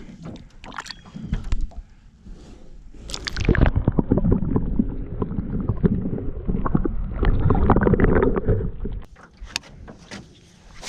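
Water sloshing and gurgling around a small fishing boat, with knocks and handling noise. It is loudest from about three and a half seconds in until about nine seconds.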